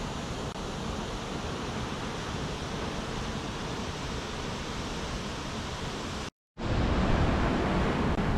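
Horsetail Falls pouring heavily, swollen by recent rain, a steady rushing roar of falling water. It cuts out briefly about six seconds in, then comes back louder and deeper.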